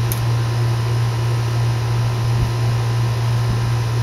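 Steady low droning hum from running machinery, unchanging throughout, with a faint brief click at the very start.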